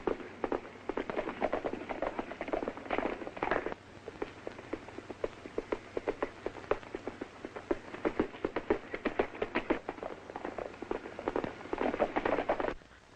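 Horses galloping: a fast, irregular clatter of hoofbeats that cuts off abruptly near the end.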